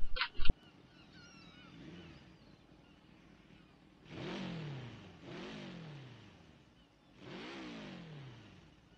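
Three dirt bikes passing by one after another, about a second apart. Each engine's pitch drops as it goes past.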